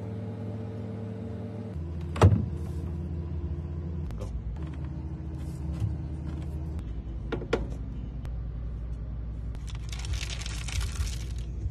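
A low steady drone that shifts pitch every few seconds, with a few sharp knocks, the loudest about two seconds in. Near the end comes a dry rattle of cereal pouring into a plastic milkshake mixer cup.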